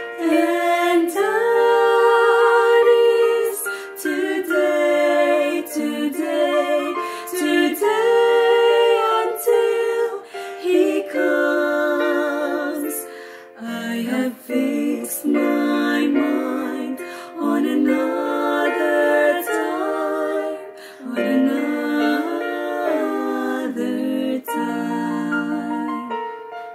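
Three women singing a gospel hymn together in harmony, phrase after phrase, stopping just before the end.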